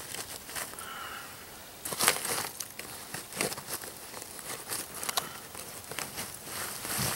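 Gloved hands shifting charcoal in a pit and setting a wrapped turkey into the coals: irregular gritty crunching, scraping and crinkling, louder about two seconds in.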